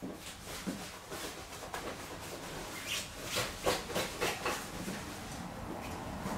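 Hair-cutting scissors snipping through dry hair: a run of quick, irregular snips that come thickest and loudest from about three to four and a half seconds in.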